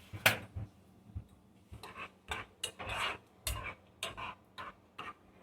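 Clinks and knocks of kitchen utensils against a small cooking pot, a string of separate short hits with the sharpest about a quarter second in.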